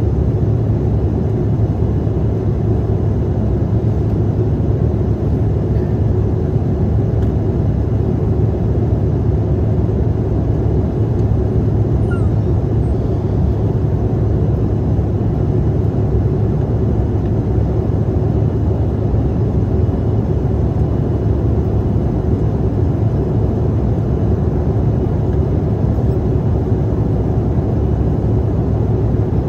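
Steady cabin noise inside a Bombardier CRJ-700 regional jet in its climb: a constant low rush of airflow with the drone of its rear-mounted GE CF34 turbofans, unchanging throughout.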